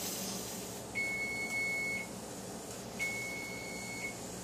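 Electronic kitchen timer beeping: two steady, high beeps of about a second each, two seconds apart, marking the end of the pressure cooker's set cooking time. In the first second a hiss fades out.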